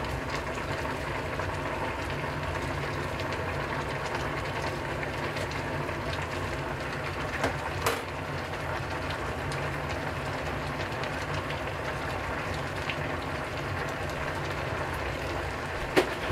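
Saucepan of nikujaga simmering on a gas burner under an aluminium-foil drop lid, a steady bubbling hiss with scattered small ticks. A couple of sharper clicks come about eight seconds in and again near the end.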